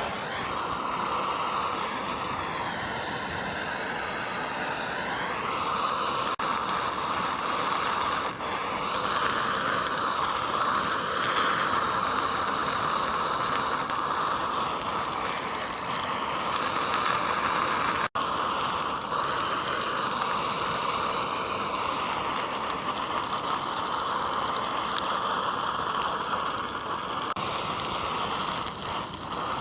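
Power grinder grinding away the ceramic shell of an investment casting mold to open the wax cup. It makes a steady whine with a rough grinding noise, and its pitch sags for a few seconds under load about two seconds in. There is a brief break about 18 seconds in.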